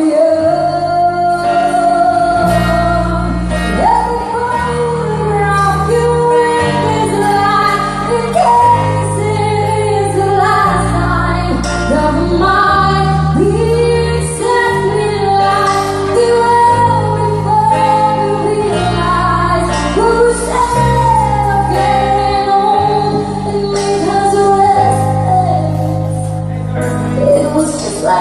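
Live band performing a song, led by a woman singing into a microphone over keyboard, guitar and a low bass line that changes note every second or two.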